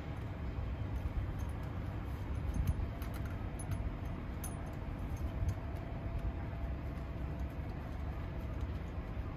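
Steady low rumble from the parked articulated truck, with light clicks and rattles as the coiled air and electrical lines and their connectors are handled.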